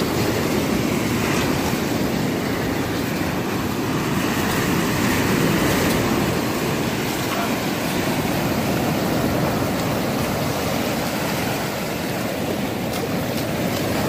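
Surf washing in over the sand in a steady rush, with wind noise on the microphone.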